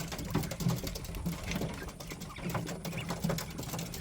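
Penned poultry pecking at freshly given feed: a quick, uneven run of sharp clicks and taps, with short, soft low calls now and then.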